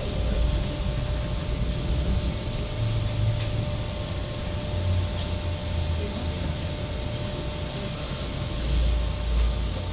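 Portland Aerial Tram cabin travelling along its cables: a steady low rumble from the moving cabin with a faint steady hum on top, swelling briefly near the end.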